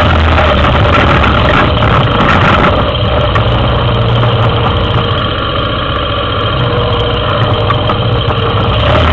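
Yamaha Big Bear 400 ATV's single-cylinder four-stroke engine running at low speed, easing off a little about halfway through, then picking up again.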